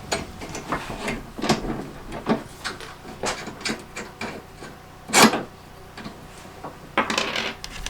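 Metal plow brackets and bolts clinking and knocking as they are handled and fitted, a string of scattered short knocks with the sharpest about five seconds in.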